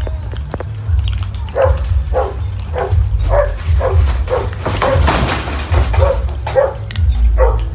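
An animal calling over and over in short, even calls, about two a second, over a steady low rumble.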